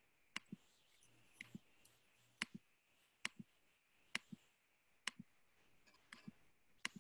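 Quiet computer mouse clicks, a sharp click-click pair about once a second.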